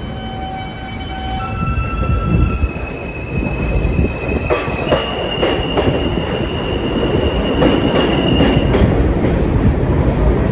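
Alstom R160A subway train accelerating away from the platform. Its propulsion gives a steady whine that steps up in pitch several times, and from about four seconds in the wheels clack over the track, faster and louder as the train gathers speed.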